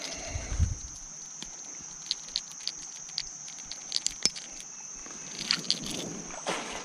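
Insects droning in one steady high tone, with scattered small clicks and rustles as a fishing lure's hook is worked out of a shirt.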